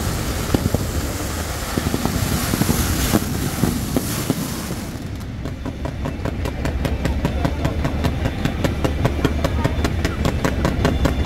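Fireworks and firecrackers going off: a dense crackling hiss for about the first five seconds, then a fast, even run of sharp pops like a long firecracker string.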